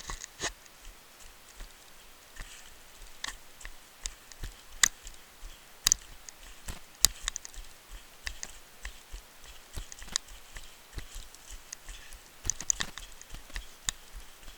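Footsteps on a forest trail descent: irregular sharp steps and scuffs, about one a second, with a quicker flurry of steps near the end.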